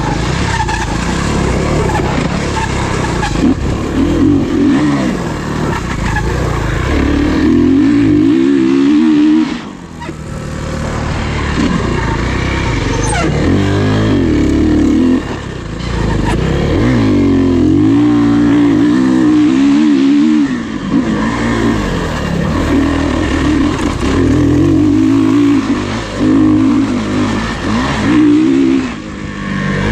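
Off-road racing dirt bike engines revving hard, the pitch climbing and falling again and again as the throttle opens and closes. The sound dips sharply twice, about a third and about halfway through.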